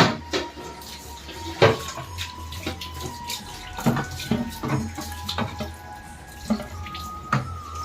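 Water running from a tap while removable fridge trays and containers are washed in a sink, with repeated knocks and clatters as the pieces are handled.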